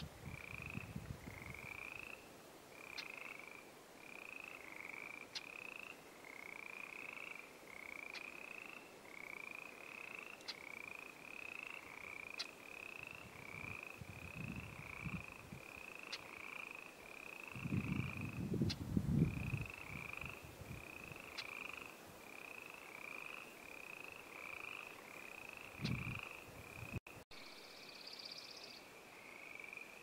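A chorus of frogs: many short, rising croaks overlapping at a steady pace of about two a second. A few low rumbles break in, the loudest a little past halfway.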